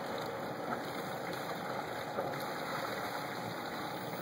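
A 48-foot Tayana sailboat motoring slowly under its inboard engine: a steady rush and gurgle of water with engine noise beneath it.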